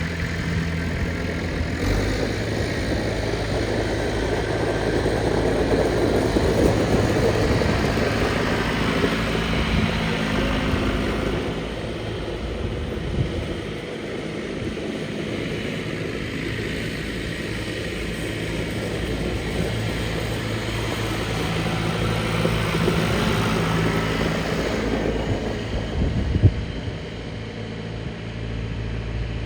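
John Deere 2850's four-cylinder turbocharged diesel engine running steadily, swelling louder and fading back in turn, with one short thump near the end.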